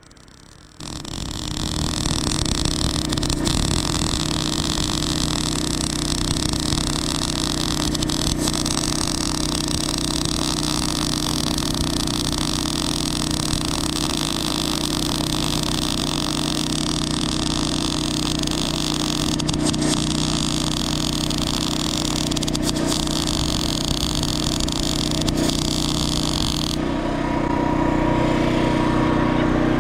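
Stick-welding arc on a steel pipe fence joint, a steady hiss that starts about a second in and cuts off near the end. Under it, a small engine runs steadily throughout and is left running after the arc stops.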